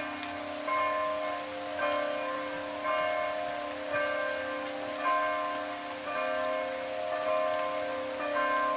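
Church bells ringing, struck about once a second, each stroke ringing on into the next over a steady low hum.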